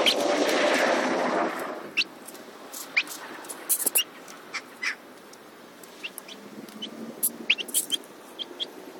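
Young chickens peeping with short, sharp high calls scattered through, while they peck at grass. A broad rustling noise fills the first two seconds.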